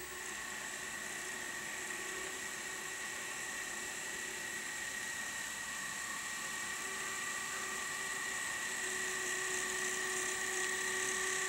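Three Fox Valley Models N-scale GP60 locomotives running together, their motors screaming with a steady high-pitched whine that slowly grows louder as they approach. The owner blames this motor noise on the models themselves.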